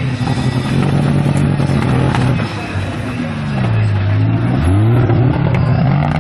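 Off-road racing buggy's engine running under load as it crawls over a dirt mound: the note sinks about three seconds in, then is revved sharply back up and held high.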